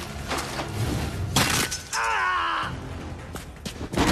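Fight sound effects: several sharp hits and crashes, with something shattering, and a short wavering pitched sound about two seconds in, over film score music.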